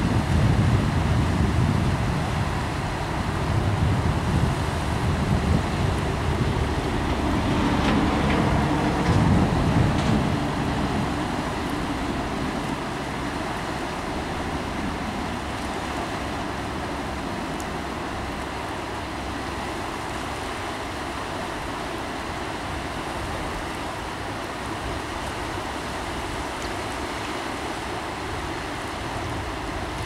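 Steady rush of turbulent water churning below a low dam. A louder, uneven low rumble sits under it for about the first dozen seconds, then drops away, leaving an even hiss.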